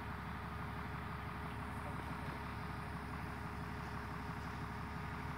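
Hitachi EX220 excavator's diesel engine running steadily.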